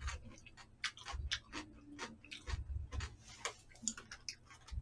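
Irregular light clicks and taps of chopsticks against plastic takeout trays while eating, a few each second, with a few soft low thumps.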